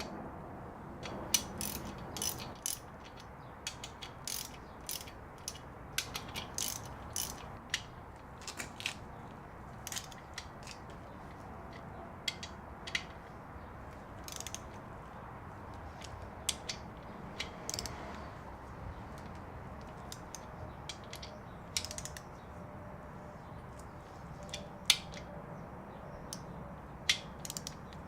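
Ratchet wrench clicking in irregular runs of short, sharp clicks as the engine's main bearing cap bolts are run down and torqued.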